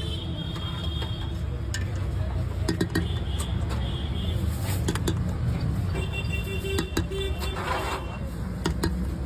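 Busy street background: a steady low traffic rumble, with scattered sharp clinks and taps of metal utensils.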